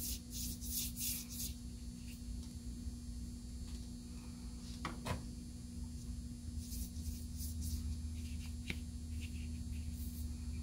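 Soft scratchy strokes of a watercolor paintbrush brushed across watercolor paper in a few short runs, over a steady electrical hum. A couple of light clicks come about halfway through.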